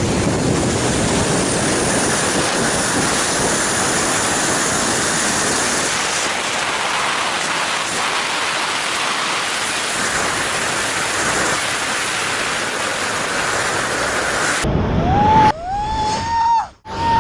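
Loud, steady rush of wind over a camera microphone in flight, which cuts off suddenly near the end. Then comes a high-pitched yell that rises and falls for about a second and a half.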